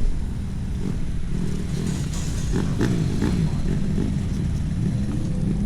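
Motor vehicle engine running with a steady low drone while driving, its pitch wavering slightly a couple of seconds in.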